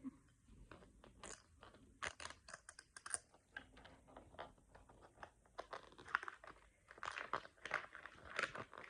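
Plastic toy packaging being unwrapped and torn open by hand: an uneven run of sharp crinkles, crackles and clicks, busiest about two seconds in and again in the second half.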